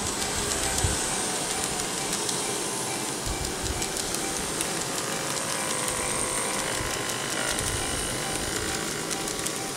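N-gauge model electric train, a KATO 115 series set, running along the track: a steady small-motor whir with many light clicks from the wheels on the rails.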